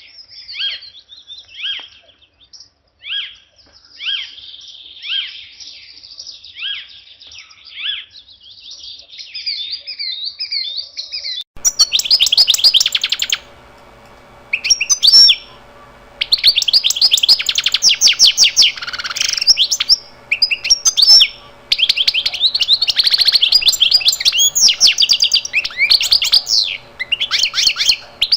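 Songbirds chirping. About eleven seconds in, the sound changes abruptly: sparse short chirps give way to louder, dense runs of rapid trills over a faint steady hum.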